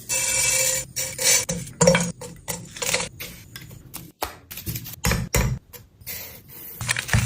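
Clatter and knocks of cooking utensils and pans, heard in short, abruptly cut snippets.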